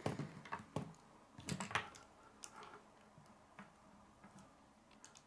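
K'nex plastic pieces clicking and tapping as they are handled and snapped onto rods: a few faint, irregular clicks, with a quick cluster about a second and a half in.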